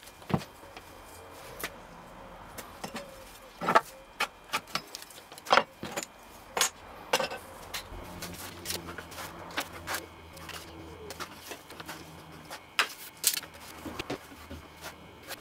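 Wooden boards and plywood pieces handled on a workbench: irregular sharp knocks and clicks as pieces are moved, picked up and set down.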